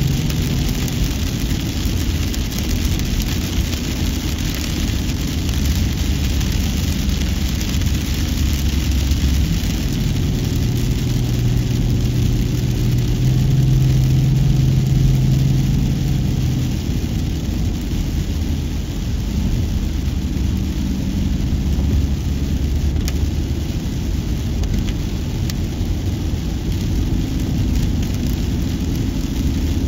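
Car driving along the highway: steady engine hum and tyre road noise with a broad hiss. The engine hum grows stronger for several seconds midway.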